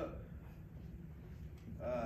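Low steady background hum, then a short voiced sound from a person near the end, like a gasp or the start of an utterance.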